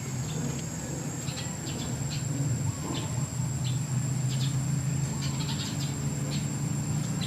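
Scattered short, high chirps from small animals, over a steady high whine and a low steady hum.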